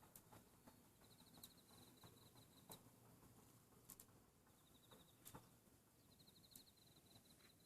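Near silence, with faint high pulsed chirping trills every couple of seconds and a soft click about every second and a quarter.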